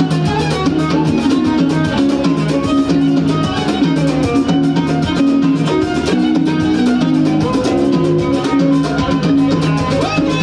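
A Moroccan chaabi band playing live: an instrumental passage on keyboards, drum kit and hand drums, with a steady beat and repeating bass notes.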